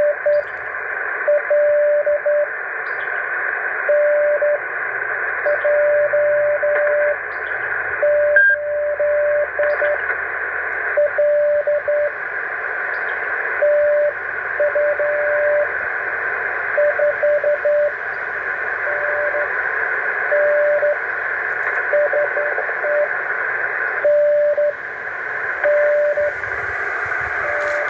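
Morse code heard through a radio receiver: a single steady tone keyed on and off in dots and dashes over a constant hiss of receiver noise.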